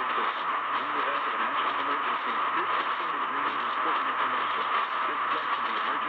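Radio receiver tuned to a weak, distant station: steady static and hiss, with a faint voice barely coming through underneath.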